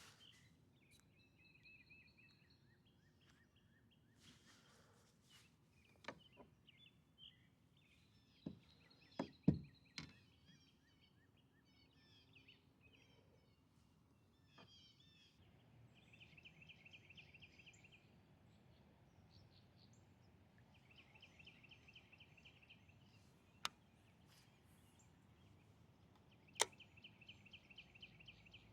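Faint birdsong: chirps and a high, rapid trill about two seconds long that repeats three times, about five seconds apart. A few sharp knocks come through as well, a cluster about nine to ten seconds in and two more near the end.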